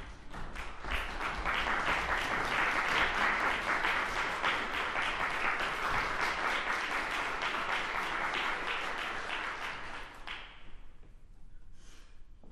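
Audience applauding, building up about a second in and dying away after about ten seconds.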